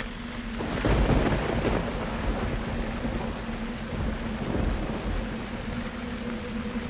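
Steady rain of a thunderstorm, with a sudden clap of thunder about a second in and low rumbling under the rain after it.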